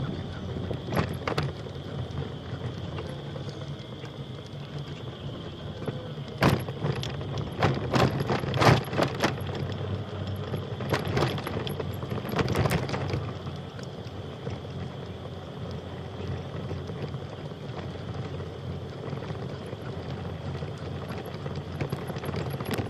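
Bicycle ride on a trail: a steady low rumble of tyres and wind, with a cluster of sharp rattling clicks from the bike about a third of the way in. Under it runs a steady high insect-like buzz that the rider is unsure is crickets.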